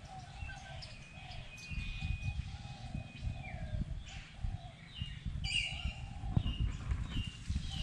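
Several birds chirping and whistling in short calls, with one longer held whistle about two seconds in, over a steady low rumble.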